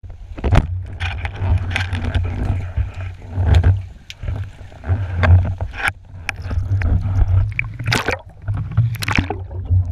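Muffled underwater rumble of water moving past a diver's camera housing, broken by sharp clicks and knocks. A band-powered speargun is fired in the first few seconds, and gear knocks follow as the speared fish is handled.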